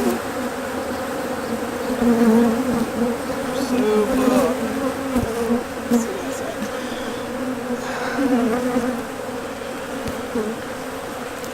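Many honeybees buzzing around an opened hive as its frames are handled: a dense, continuous hum whose pitch wavers up and down.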